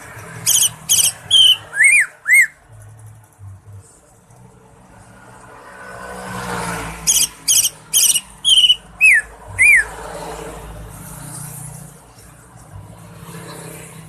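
Green leafbird (cucak ijo) singing two bursts of loud, sharp, whistled notes, about six notes each, the last ones arching up and down; between the bursts a passing rumble swells and fades.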